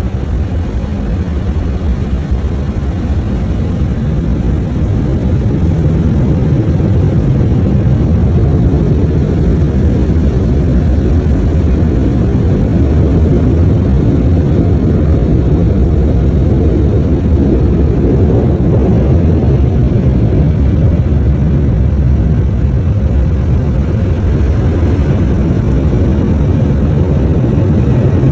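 Automatic car wash air dryer blowers running, a loud, steady rush of air heard from inside the car, building over the first few seconds and then holding even.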